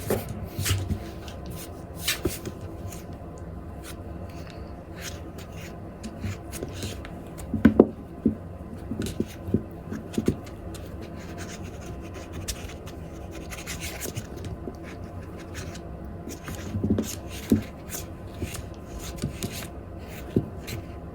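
Scattered rustling, scratching and light taps, the sounds of a kitten at play with a foxtail cat teaser wand, with a louder cluster about eight seconds in.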